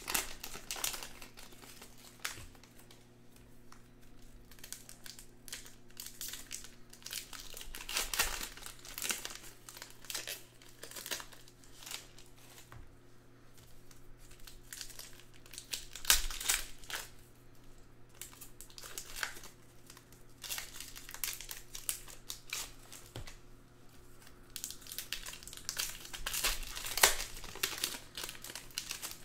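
Trading card pack wrappers being torn open and crinkled by hand, in irregular bursts, loudest about halfway through and near the end, over a faint steady hum.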